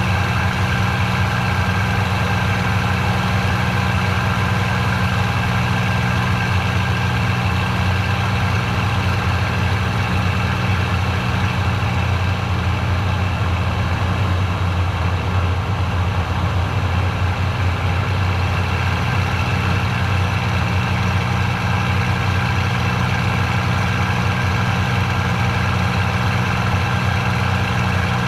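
P-51 Mustang's V-12 piston engine and propeller droning steadily in cruise flight, heard from inside the cockpit.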